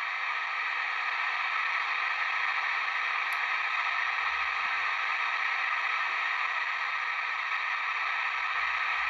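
Sony ICF-2001D receiver's speaker giving a steady static hiss as it is tuned down through the airband, with no aircraft transmission on frequency.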